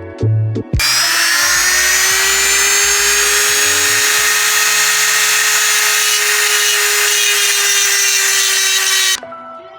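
High-speed rotary grinder running steadily at a high-pitched whine, grinding down bolt damage in a Harley-Davidson Sportster's aluminium cylinder head. It starts suddenly about a second in and cuts off near the end.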